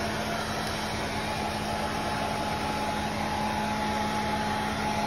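Handheld hair dryer running steadily, blowing warm air onto a wet newborn kitten to dry it after a bath; an even blowing noise with a constant low hum.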